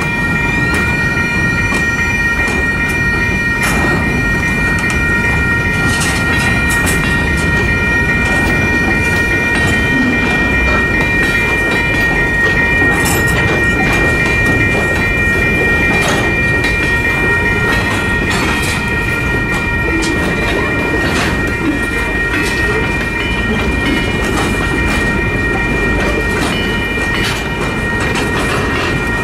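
Freight train cars, covered hoppers, rolling through a grade crossing: a steady low rumble with scattered clanks. A set of steady high ringing tones runs throughout, the crossing signal's bell.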